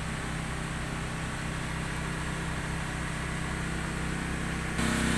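Boat engine running steadily, with a low even drone and a hiss over it; it suddenly gets louder near the end.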